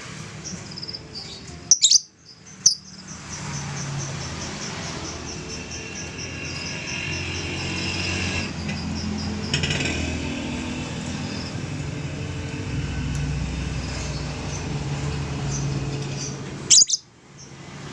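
Lovebird calling: a fast run of high chirps, about four or five a second, lasting several seconds, with loud sharp shrieks twice near the start and once near the end.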